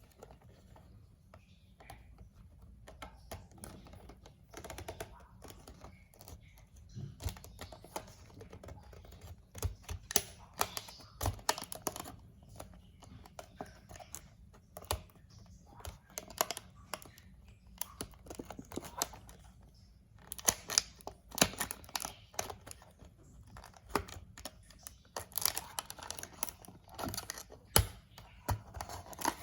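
Packaging of a die-cast toy car being handled and opened by hand: irregular clicks and taps with brief crinkling and tearing.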